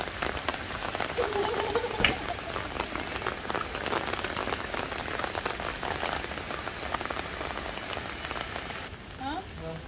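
A hand-made rain effect: a steady patter of many water drops falling onto a wet concrete rooftop. It cuts off suddenly about nine seconds in.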